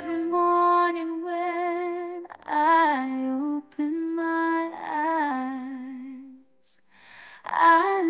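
A woman's voice singing a slow pop melody in long held, wavering notes, with almost no accompaniment beneath it; it breaks off briefly a few times and pauses about six and a half seconds in before coming back near the end.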